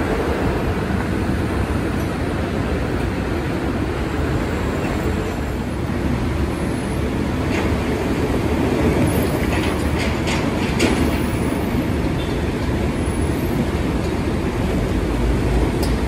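Steady urban road traffic noise: a continuous rumble of vehicles on the roads below, with a few faint, short high-pitched sounds about halfway through.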